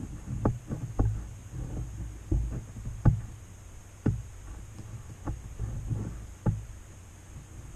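Handling noise from an airsoft rifle being raised and aimed: about a dozen irregular knocks and bumps over a low steady hum.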